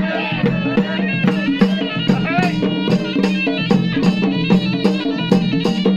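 Traditional folk music played live: a reedy wind instrument carrying a melody over a steady drone, with quick, even drum beats.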